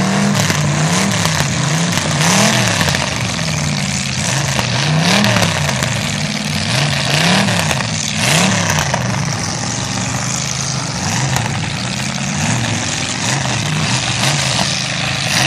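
Demolition derby car engines revving hard up and down over and over, about once a second, as the battered cars push against each other in the mud.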